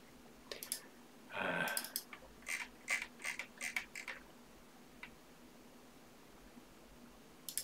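Computer mouse clicking, about nine short, sharp clicks spaced irregularly, as folders are opened in a file-save dialog. A brief murmured voice sound comes about a second and a half in.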